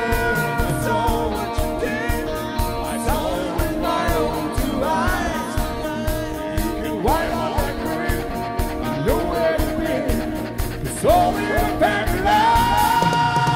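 Live rock band playing: drums keep a steady beat under guitars, bass and keyboard, with a gliding melody line on top. Near the end a long note is held.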